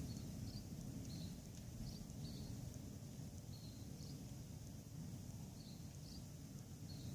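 Small bird chirping: short, faint high chirps about once or twice a second, over a steady low rumble.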